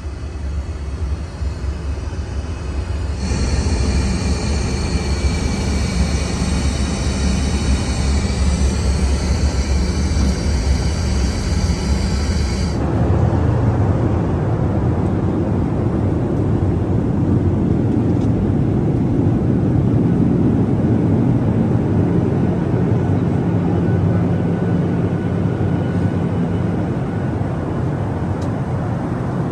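Steady in-flight cabin noise of a Boeing 737-800, a low rumble of engines and airflow. From about three seconds in, a hiss with several high steady whistling tones joins in and cuts off abruptly about thirteen seconds in, leaving a deeper, fuller rumble.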